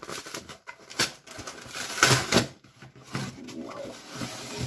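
Parcel packaging rustling and crinkling as it is opened and handled, with a few sharp knocks, the loudest about two seconds in.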